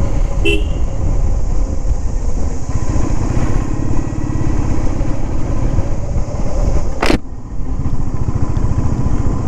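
Motorcycle engine running steadily under way, heard from the rider's seat. A brief click about half a second in, and a short knock about seven seconds in.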